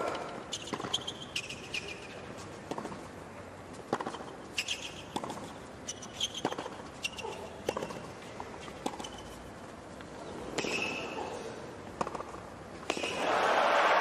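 Tennis stadium crowd hushed between points: a low murmur with scattered clicks and short high chirps, then a swell of crowd noise near the end.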